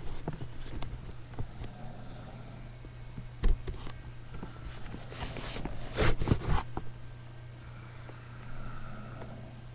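Snoring, with noisy breaths about halfway through and again near the end, over a steady low hum. Sharp knocks and clicks close to the microphone, the loudest a cluster about six seconds in.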